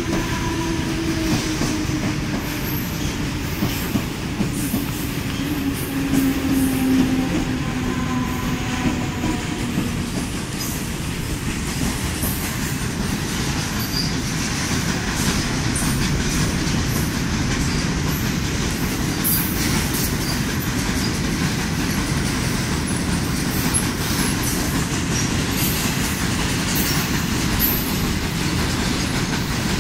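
Freight train of petroleum tank wagons rolling steadily past, the wheels clattering over the rail joints with a continuous rumble and many sharp clicks. A faint tone slowly falls in pitch over the first ten seconds.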